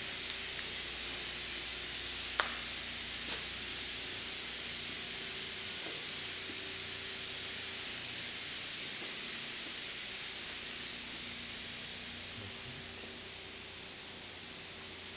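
Steady hiss and low hum of running candy production-line machinery and air ducting, with one sharp click about two and a half seconds in.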